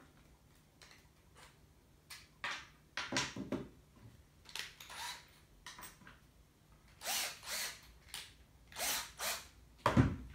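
Cordless drill run in a string of short trigger pulls, each a brief spin-up and wind-down. There is a sharp click near the end.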